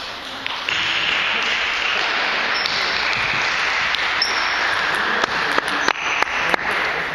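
Table tennis rally: the celluloid ball clicking sharply off the bats and the table, with a quick run of hits about five to six and a half seconds in. A steady hiss of hall noise lies underneath.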